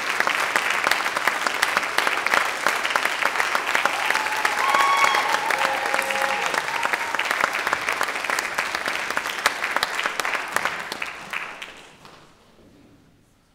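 Audience applauding, dying away about twelve seconds in.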